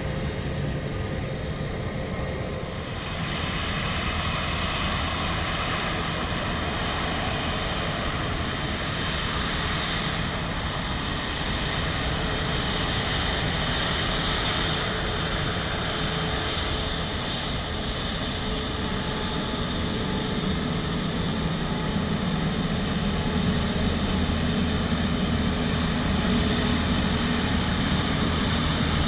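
Rolls-Royce Trent XWB turbofan engines of an Airbus A350 taxiing, a steady jet engine rumble and hiss that grows slightly louder near the end as the aircraft comes closer. The first few seconds hold a more distant Airbus A320 taxiing.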